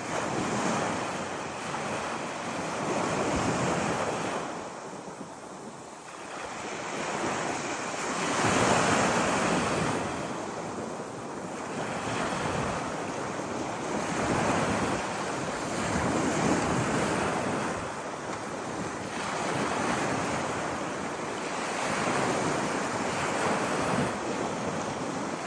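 Ocean surf breaking and washing up a beach, a steady rush that swells and falls every few seconds, loudest about a third of the way in.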